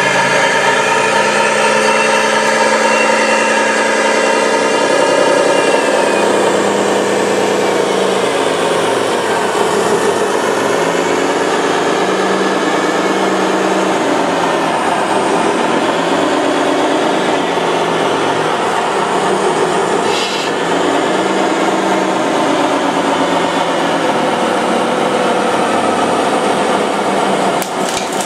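Electric motors, gearboxes and hydraulic pumps of radio-controlled model construction machines whining at work, their pitch rising and falling as they speed up and slow down. A few sharp clicks come near the end as the sound drops.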